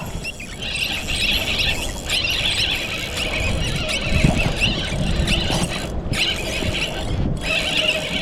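Spinning reel's drag squealing in repeated short bursts as a hooked striped bass pulls line out.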